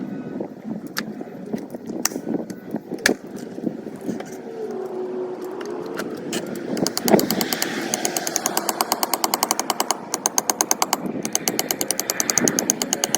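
Tool tapping on an aluminum truck panel during paintless dent repair: a few separate sharp taps, then from about seven seconds in a fast, even run of tapping.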